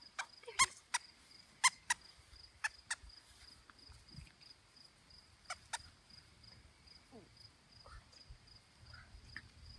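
A plush squeaky toy squeaking in short sharp bursts as puppies tug at it, about eight squeaks in the first six seconds, several in quick pairs. A steady pulsing insect chirp runs behind.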